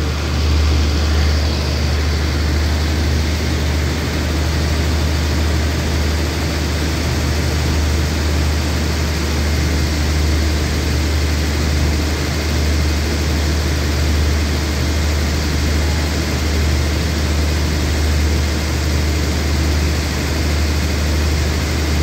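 Diesel engines of a passenger train standing in the station, idling: a steady, unbroken low hum.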